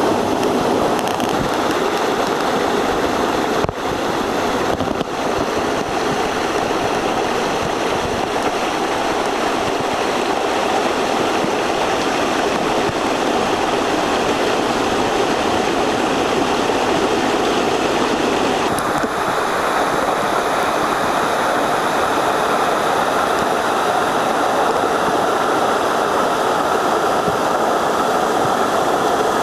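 Waterfall in a mountain gorge, a steady loud rush of falling water close by.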